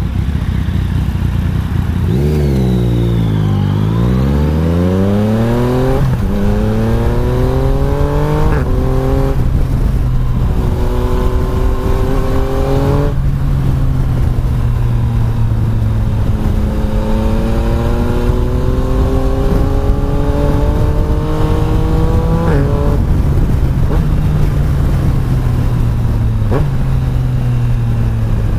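Yamaha Tracer 900 GT's three-cylinder engine accelerating under way, its pitch climbing and then dropping sharply at each upshift, about five gear changes. A few seconds in, the revs briefly fall and rise again.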